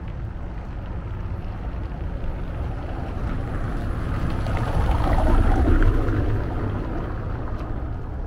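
A vehicle's rumble swelling to a peak about five to six seconds in and fading again as it passes, with wind buffeting the microphone.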